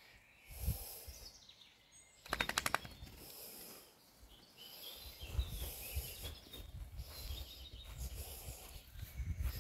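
Whippet puppies scuffling and wrestling on artificial turf, heard as uneven low thumps and rustling, with birds chirping faintly. About two seconds in comes a short, rapid rattle of sharp clicks.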